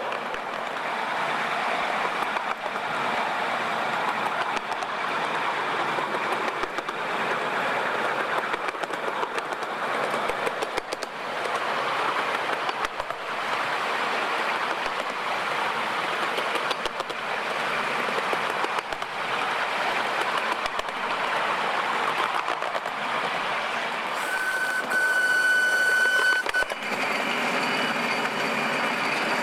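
Miniature steam locomotive 5806 running along the track, heard from the train behind it as a steady rush of exhaust and wheels on the rails. About 25 seconds in, a whistle sounds for about two seconds.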